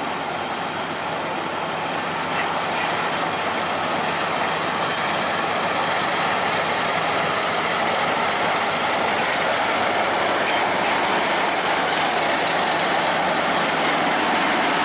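Crown Sumo rice combine harvester running as it cuts rice, a steady, dense mechanical noise from its engine and cutting and threshing machinery. It grows a little louder about two seconds in.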